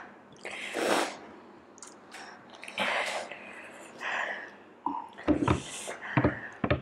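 A woman's sharp, hissing breaths in and out through the mouth, one every second or two, from the burn of a super-hot chili chip. Near the end she drinks from a cup, with gulping and the cup knocking.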